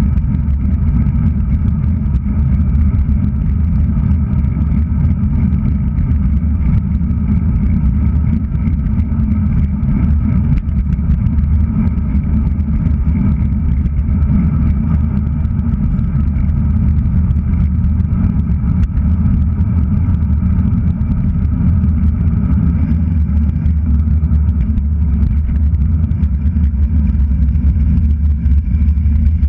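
Steady low rumble of wind buffeting a handlebar-mounted GoPro Hero3+ on a road bike riding at speed along a city street.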